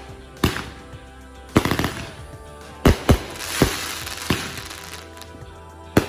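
Aerial fireworks bursting overhead: a string of sharp bangs at uneven intervals, several followed by crackling, over background music.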